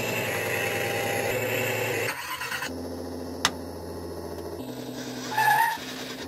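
RC engine sound module playing a simulated engine through its small speaker: running at raised revs, then dropping about two seconds in to a steady low idle. There is one sharp click midway and a brief high-pitched squeal effect near the end.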